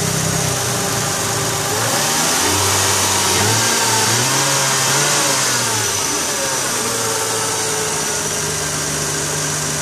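Toyota 1JZ-GTE twin-turbo inline-six running, its revs rising and falling a few times before it settles back to idle, over a steady hiss. The twin turbos have failed and make almost no boost, about 0.1 bar at most.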